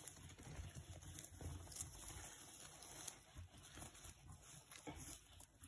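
Faint rustling and crackling of straw as a hand parts the bedding of a rabbit nest, with a few soft ticks.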